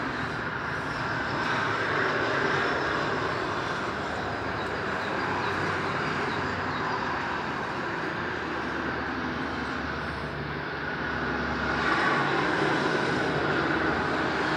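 Distant motorway traffic heard from above: a steady wash of tyre and engine noise from lorries and cars, swelling a little twice as vehicles pass.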